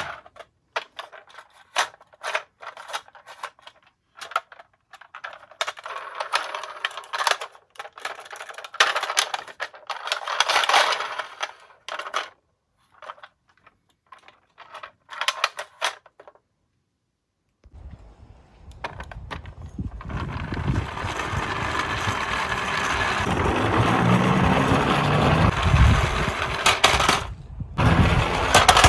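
Die-cast toy cars clicking and clattering against each other while handled in a toy box. Near the end a louder, steady rolling rumble builds for about ten seconds.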